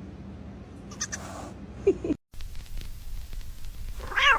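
Goat bleating briefly about two seconds in, then, after a cut, another short animal call near the end that rises in pitch.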